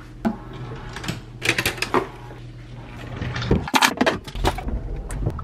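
Scattered handling clicks and knocks, with a cluster of sharper clunks about four seconds in as a 20-ounce Stanley stainless steel tumbler is set down into a car's cupholder. A low steady hum runs underneath.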